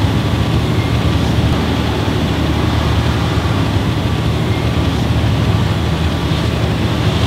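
Industrial clay mixer running, its metal paddles churning wet clay in the trough beneath a steel grating: a loud, steady, low mechanical rumble.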